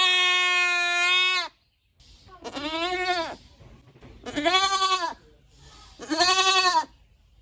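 Goats bleating: one long, steady bleat, then three shorter bleats about two seconds apart, each rising and falling in pitch.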